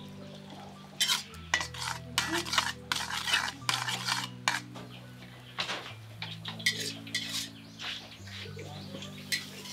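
Metal spatula scraping and clinking against a metal wok while egg is stirred and broken up in it. The run of quick scrapes and knocks starts about a second in and thins out near the end. Soft background music of held low notes plays throughout.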